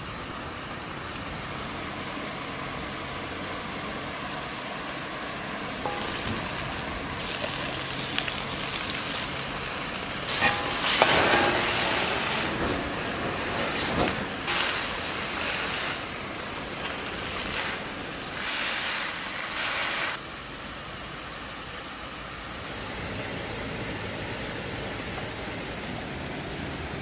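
Food sizzling over an open fire: a steady hiss that grows louder about six seconds in. From about ten to sixteen seconds in there is a loud stretch of sizzling with clatter as food is tossed in a wok over flames, and after about twenty seconds it settles back to a quieter hiss.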